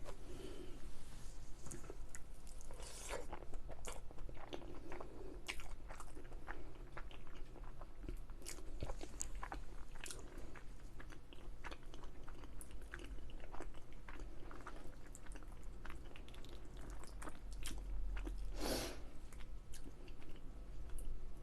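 A person eating close to the microphone: chewing ravioli and crispy onion rings, with many small wet mouth clicks and occasional crunches, and one longer rush of noise near the end.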